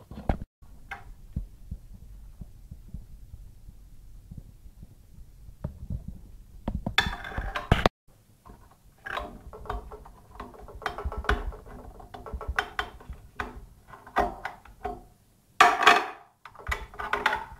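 Small parts being handled and fitted into a sewing machine's rotating hook area: irregular clicks, scrapes and rattles, loudest in two bursts about seven seconds in and near the end, over a low rumble from handling.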